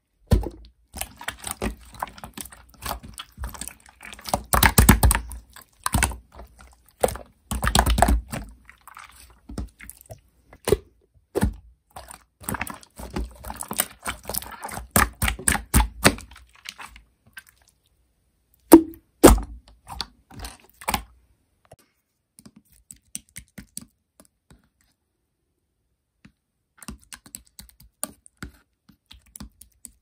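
Hands squishing and pressing a clear blue slime, making sticky clicks, crackles and air-bubble pops. The sounds come in dense clusters during the first half and thin out later, with a couple of louder pops a little past the middle and only faint ticks for several seconds near the end.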